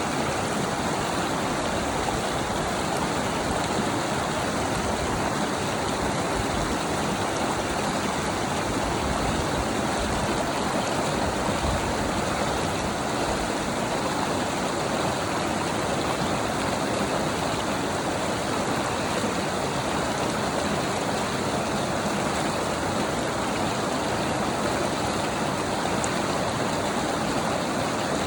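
Mountain stream flowing steadily over rocks, an even rush of water with no let-up.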